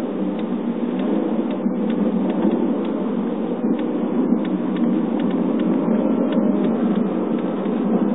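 Interior sound of a 2011 Chevrolet Cruze LS on the move: a steady low road and drivetrain rumble with a light, irregular ticking rattle on top. The tick persists even on well-paved roads, and a Chevrolet dealer could not find its cause.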